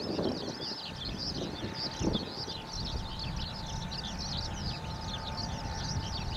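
Birds singing in a continuous run of rapid, high chirps. Under the birdsong, wind rumbles on the microphone, gusting about two seconds in, and a faint steady hum begins shortly after the start.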